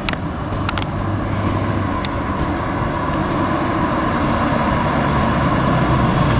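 1993 Chevrolet Corvette with a 5.7-litre LT1 V8 running as the car drives up at low speed. The engine and tyre noise grow steadily louder as it approaches.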